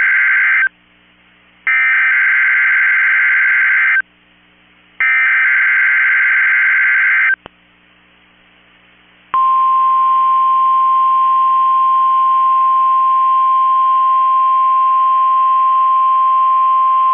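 NOAA Weather Radio alert signal: the end of one burst of the SAME digital header's screechy data tones and two more bursts, each about two seconds with a second's gap between. After a click and a short quiet, the steady single-pitch 1050 Hz warning alarm tone starts about nine seconds in and holds. This tone switches on weather alert radios, here sent as the weekly test.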